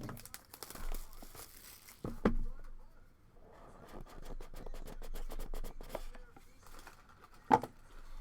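Plastic wrapping on a sports card box crinkling and tearing as it is opened, then a run of small clicks and rustles as cards are handled. Two knocks are heard, one about two seconds in and a louder one near the end.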